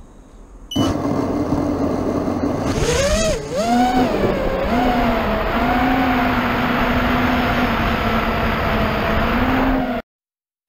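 FPV freestyle quadcopter's brushless motors and propellers, heard through its onboard camera. After a faint start, the throttle comes up about a second in to a loud whine with wind rush. The pitch swoops up and down as the throttle changes, then settles, and the sound cuts off suddenly near the end.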